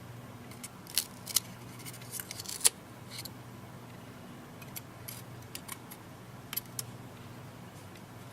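Scattered sharp clicks and small snips from hand tools and tablet parts being handled during a screen repair, the loudest about a second in and again near the three-second mark. A steady low hum runs underneath.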